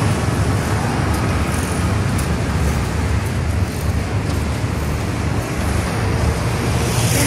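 Steady road traffic noise: a continuous rumble of motor vehicles on a busy, congested town road.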